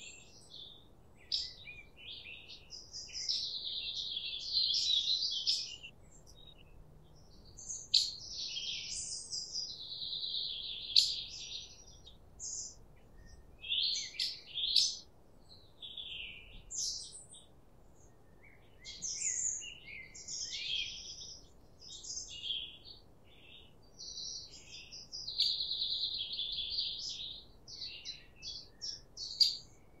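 Songbirds singing: a string of varied high chirps, whistles and trilled phrases, several trills lasting about two seconds, with short pauses between them.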